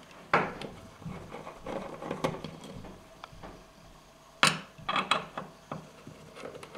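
Screwdriver undoing Phillips screws from a sheet-metal bracket: scattered light metallic clicks and ticks as the screws turn and are picked out, with a louder cluster of clicks about four and a half to five seconds in.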